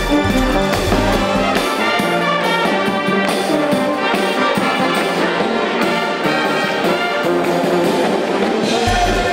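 Loud brass-led instrumental music, with trumpet- and trombone-like lines over a full band. The deep bass drops out about a second and a half in and returns just before the end.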